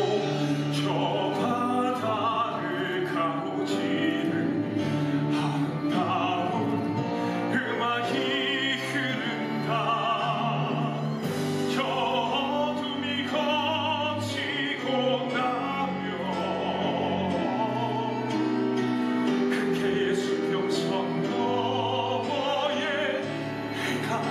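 A male singer's voice, amplified through a headset microphone, singing a dramatic musical-theatre ballad with vibrato over sustained instrumental accompaniment.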